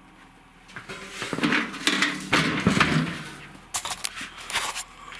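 Camera handling noise as the camera is set down and moved about low under a model truck: rustling and scraping, with a few light clicks and knocks a little before the end.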